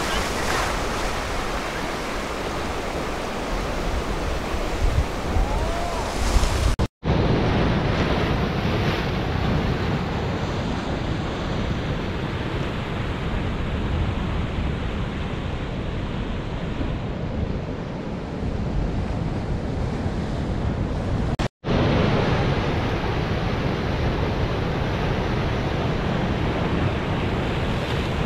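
Ocean surf breaking on a beach, a steady rush of noise, with strong wind blowing over the microphone. The sound drops out for an instant twice, about seven and twenty-one seconds in.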